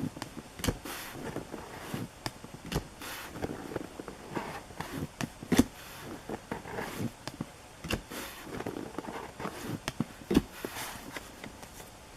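Baseball trading cards and pack wrappers being handled: irregular rustles, taps and clicks as cards are sorted and flipped.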